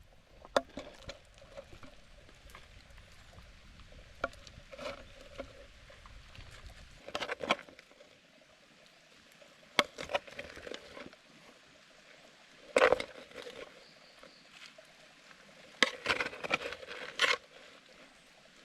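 A spoon clinking and scraping against a cooking pot and plate as cooked rice is scooped out, in scattered sharp knocks with a busier run of clinks near the end.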